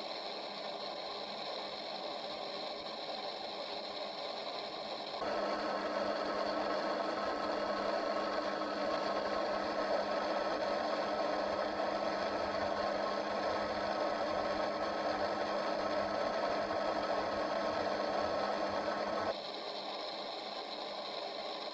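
Steady radio static: a constant hiss with faint fixed whining tones from a radio receiver, held open for spirit-box style listening. It gets louder about five seconds in and drops back near the end.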